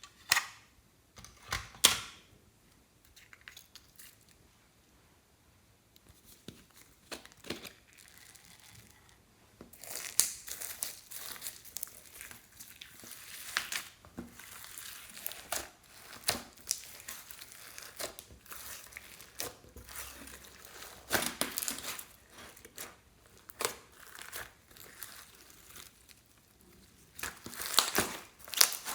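Slime being squeezed and stretched by hand, giving crackling and sharp popping sounds. There are only a few pops at first, then from about a third of the way in they come almost continuously, with another loud cluster near the end.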